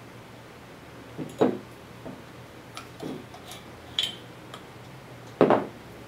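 Handling noise from a rubber high-power single-pole connector with a metal locking hasp: a few separate knocks and light clinks, the loudest knock near the end as it is set down on a table.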